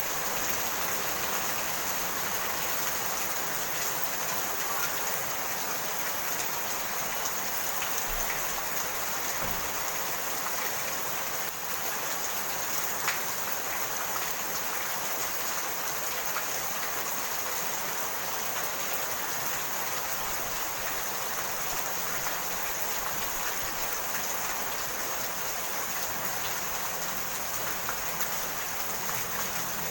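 Steady rain falling, a dense even patter of drops with no let-up. One sharper tap stands out a little before halfway.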